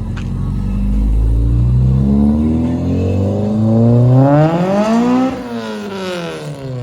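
Acura RSX with a swapped-in K24 engine accelerating past. Its engine note climbs steadily for a few seconds, peaks, then drops away as the car goes by.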